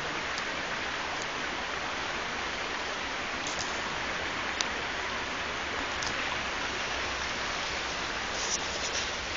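Steady rushing noise with a few faint ticks about 3.5, 4.5 and 6 seconds in.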